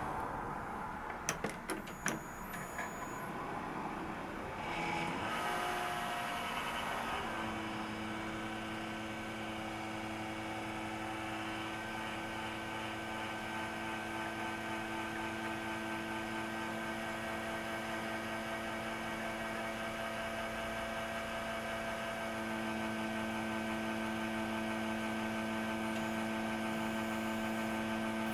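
A self-built desktop PC powering on: a few sharp clicks, then its fans spin up over a few seconds and settle into a steady pitched hum. This hum is the abnormal noise the machine sometimes makes at startup. It grows a little louder about 22 seconds in.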